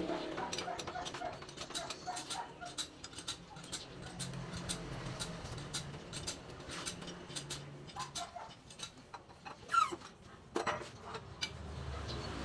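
Irregular metallic clicks and ratchet-like clacks from a hand-operated hose crimping machine being worked to crimp a fitting onto a car air-conditioning hose, with a short squeak that falls in pitch near ten seconds in.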